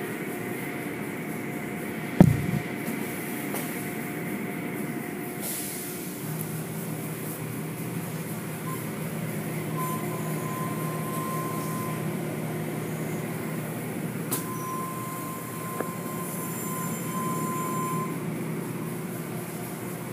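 Automatic car wash running: a steady mechanical drone with water spraying and hanging cloth strips swishing over a car. There is a loud thump about two seconds in, and a steady low hum joins at about six seconds.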